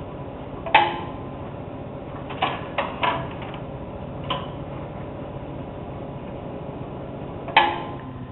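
A Rank Xerox 813 desktop copier running with a steady hum, with a handful of sharp clicks and clunks from paper being handled at the machine, the loudest about a second in and near the end.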